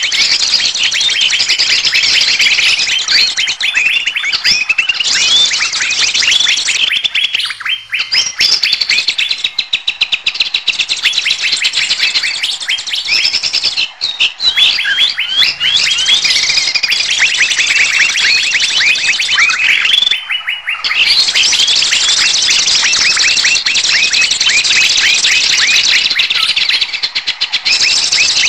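A bird-luring (pikat) recording of a noisy flock of small birds: a dense, loud chorus of rapid overlapping chirps and calls, made to sound like a commotion of agitated birds that draws others in. It thins out briefly a few times.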